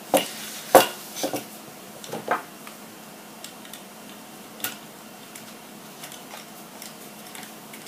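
Light clicks and taps of small model-kit parts and a hand tool being handled on the workbench during the assembly of RC truck leaf-spring suspension. They come as a few separate knocks in the first few seconds, the sharpest about three quarters of a second in, then only faint ticks.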